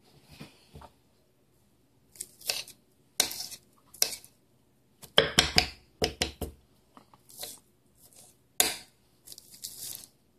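Kitchen knife chopping lettuce on a hard countertop: irregular crisp cuts with sharp knocks of the blade on the counter, and a quick run of chops about halfway through.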